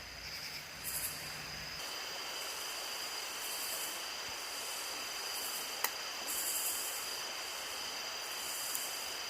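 Creek water flowing steadily, with insects chirping overhead: a steady high trill and louder pulses that come and go every second or so. A single sharp click about six seconds in.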